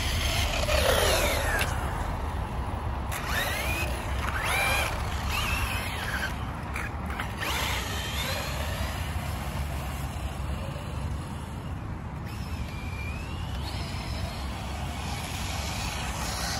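Wiaorchi 1/16-scale brushless RC car driving on pavement, its motor and gears whining up and down in pitch through several short bursts of throttle, over a steady low rumble.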